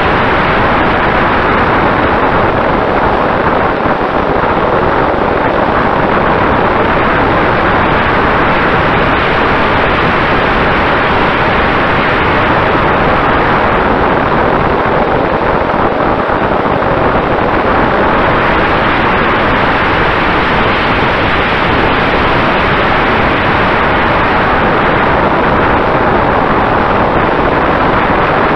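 Steady rush of wind and propeller noise picked up by the onboard camera of a Mini Talon RC plane in flight, its electric motor under way, with a faint steady hum in it. The rush eases slightly about halfway through.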